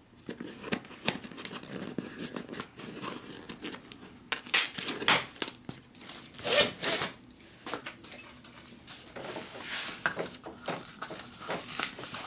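Plastic packing straps being worked off a cardboard carton, scraping and rubbing against the cardboard, with hands sliding over the box. It comes as a run of short scratchy strokes, the loudest in the middle, then a longer rubbing hiss near the end.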